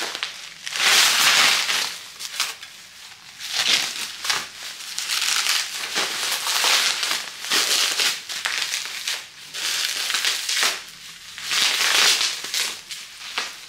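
Plastic wrapping crinkling and rustling in irregular bursts as a platter plate is unwrapped by hand.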